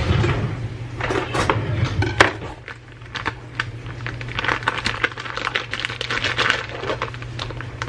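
A clear plastic zip-top bag crinkling and an aluminium foil tray rustling as they are handled, with many light clicks and taps; the crinkling is densest in the second half. A steady low hum runs underneath.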